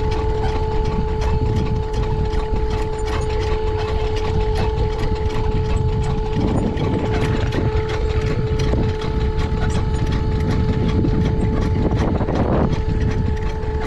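Yacht's hydraulic anchor system running with a steady whine and a low rumble, while the anchor is being set. Wind rumbles on the microphone.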